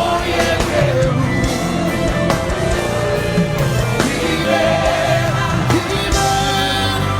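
Live worship band music, drums and sustained chords, with a voice singing over it.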